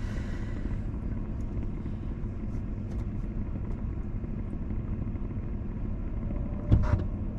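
Car idling while stopped at a red light, heard from inside the cabin as a steady low rumble. A single short knock near the end.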